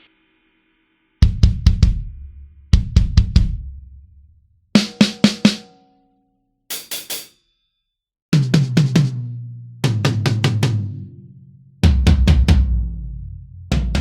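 Sampled drum kit from EZdrummer 3's Drums of Destruction library, its drums sounded one at a time. Each drum is struck about four times in quick succession, then there is a short gap before the next drum. One group is bright and cymbal-like. The later groups are deeper, tom-like hits that step down in pitch.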